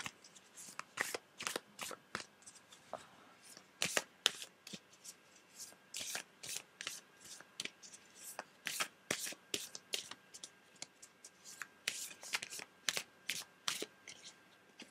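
A deck of oracle cards being shuffled by hand: an uneven run of soft, quick card flicks and slaps, a few each second.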